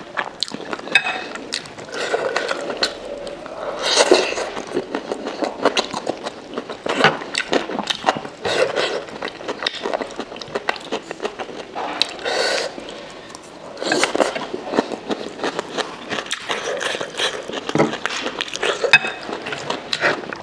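Close-up eating sounds: wet chewing and slurping of momos in spicy soup, with many short crisp clicks from the mouth.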